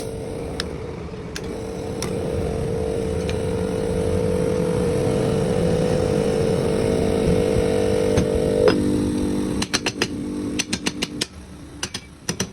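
ATA72 hermetic refrigerator compressor running with a steady hum, then stopping about nine seconds in, followed by a string of sharp clicks and knocks.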